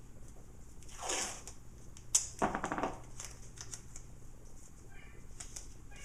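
Painter's tape being pulled off its roll and torn, with a short rasping rip a little after two seconds in, amid light rustling as hands press the tape and silk-screen stencil flat onto a cotton T-shirt.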